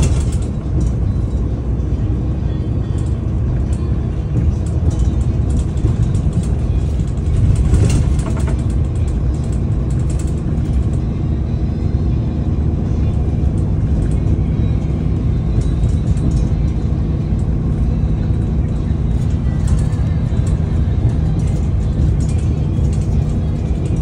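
Daewoo FX116 bus's engine running as the bus drives, heard inside the passenger cabin as a steady low drone. It gets louder for a moment about eight seconds in.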